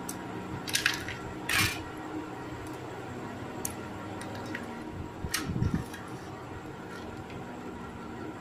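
Hardened peanut and jaggery brittle (chikki) being snapped apart by hand in a steel plate: a few sharp cracks, with a cluster of knocks about five seconds in, over a steady faint hum.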